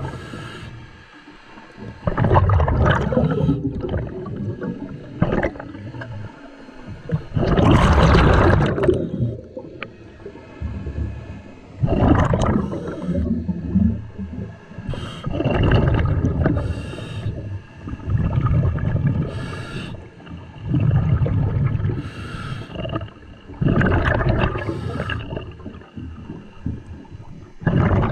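A scuba diver breathing through a regulator underwater: a gurgling rush of exhaled bubbles about every four seconds, with a short hiss of the inhale between.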